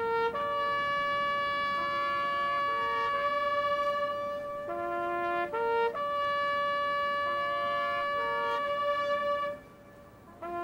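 Solo trumpet playing a slow melody of long held notes with a few shorter lower notes between them, pausing briefly near the end.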